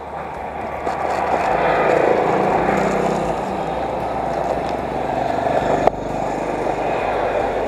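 Street traffic with motorcycle engines running close by, swelling about two seconds in; a single sharp click about six seconds in.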